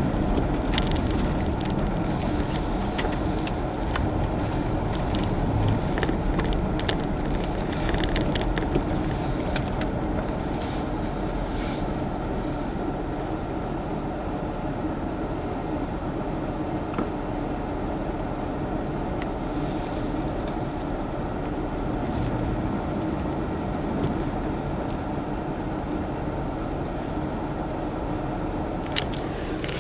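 Car driving on snow-covered streets, heard from inside the cabin: steady engine and tyre noise, with scattered crackles and clicks over the first dozen seconds, then a steadier, slightly quieter run. A single sharp click near the end.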